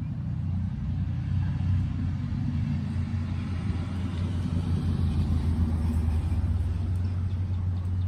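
A steady low outdoor rumble that swells a little around the middle.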